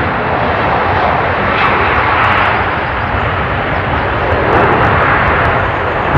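Jet airliner's engines running at take-off power, a loud, steady rushing noise.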